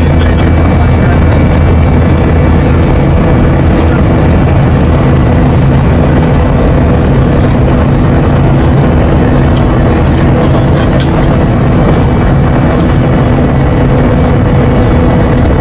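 Airliner cabin noise: the steady drone of jet engines and rushing air, with constant low hums running through it.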